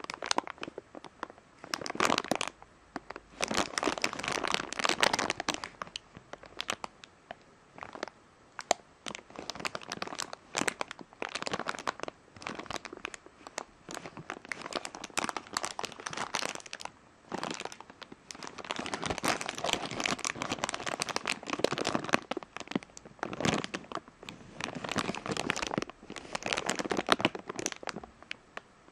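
Thin clear plastic bag crinkling and crackling in irregular bursts as fingers squeeze and work at it, with brief pauses between handlings.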